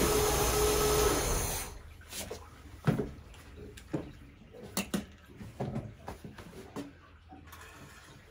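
Chrysler inboard marine engine running warm at operating temperature, shut off about a second and a half in, its noise dying away quickly. After that come a few light clicks and knocks as the dipstick is pulled and handled with a rag.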